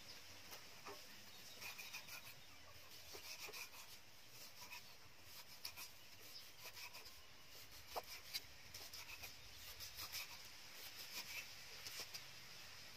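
Cleaver cutting raw meat on a round wooden chopping board: faint, irregular taps and scrapes as the blade slices through the meat and meets the wood.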